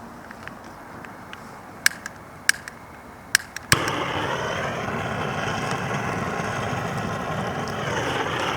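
Several sharp igniter clicks, then a gas torch flame catching with a sudden steady hiss that burns for about five seconds and cuts off, as when lighting a campfire.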